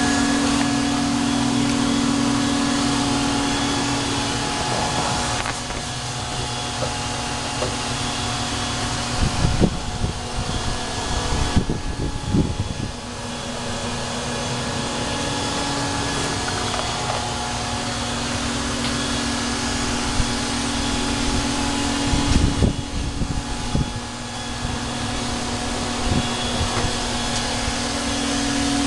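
A steady mechanical hum with a strong even tone, dipping briefly a few times, with a run of knocks and thumps about ten seconds in and again about two-thirds of the way through.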